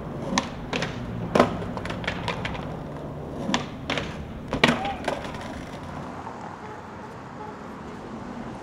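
Skateboard wheels rolling on pavement, broken by a series of sharp wooden clacks as the board is popped and lands. In the cluster of clacks near the middle, the board's tail slides along the stone ledge of a hubba in a front tailslide, and the loudest clack comes about four and a half seconds in.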